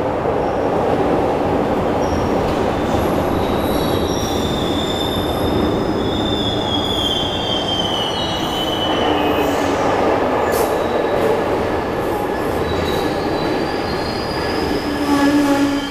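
Glasgow Subway train running in from the tunnel and along the curved platform: a steady rumble of wheels on rail with high-pitched wheel squeals that slide slowly down in pitch, strongest in the middle and again as the train enters the platform near the end.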